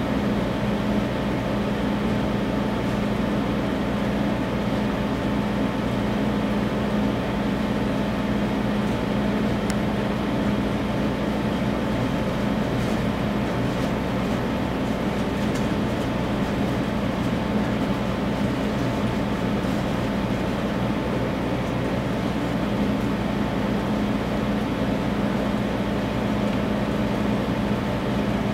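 Selective laser sintering printer running as its laser head traces a layer: a steady mechanical hum with a constant low tone and a fainter high one, with a few faint ticks.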